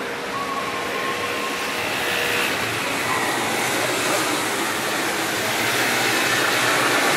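Street traffic: a steady rush of passing vehicles that grows gradually louder, with a faint thin whine in the first couple of seconds.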